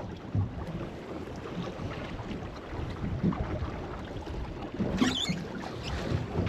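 Wind buffeting the microphone, with water slapping against a small boat's hull. About five seconds in comes a short, wavering higher-pitched sound.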